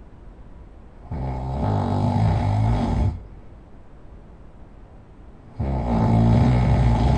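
A person snoring: two long snores, each about two seconds, with quiet gaps between them.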